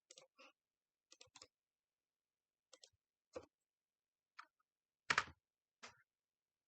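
Sparse clicks and taps of a computer mouse and keyboard, in small groups of one to three, the loudest pair about five seconds in.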